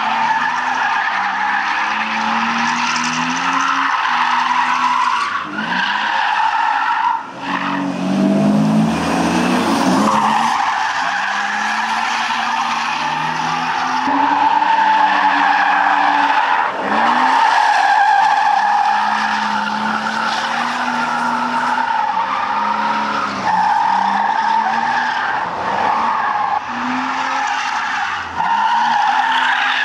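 BMW E36 Compact's M50B20 2.0-litre straight-six revving up and down again and again while drifting, its rear tyres squealing almost without pause, with brief drops in engine note between slides. The owner says the engine was running a little sluggish because of a short in the camshaft sensor.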